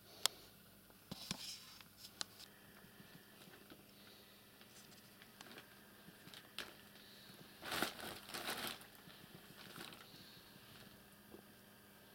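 Light rustling and scattered soft clicks, with a louder rustling scuffle about eight seconds in.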